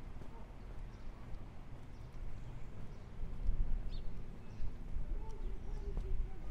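Footsteps on a concrete footpath at a walking pace, over a low rumble of wind on the microphone.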